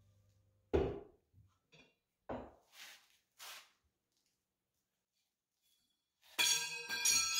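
A few hard metallic knocks of a hand wrench being hung on a wall-mounted tool rack: two sharper knocks about a second apart, then two fainter ones. Near the end a different sound with several steady ringing tones comes in.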